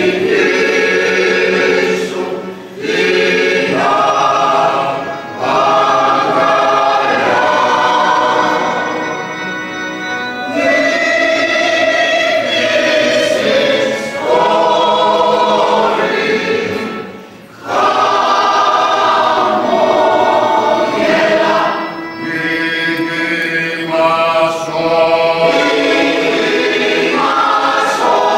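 Mixed choir of women's and men's voices singing together, phrase after phrase, with a few brief breaks between phrases, the clearest about two-thirds through.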